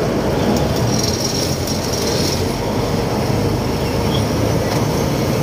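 Khlong Saen Saep canal express boat under way: its diesel engine runs at a steady loud drone, mixed with the rush of water and wind along the open-sided boat.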